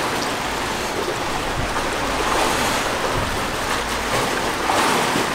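Steady rushing of sea and wind, an even noise with no distinct event in it.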